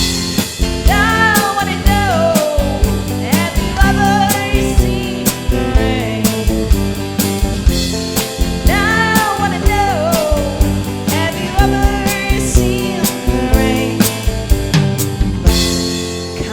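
Rock band playing a song: a lead singer over drum kit, guitar and bass, with a steady beat.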